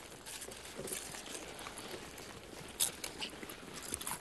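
Faint rustling with scattered small crunches and clicks from people shifting about and snacking, with a sharper click near the end.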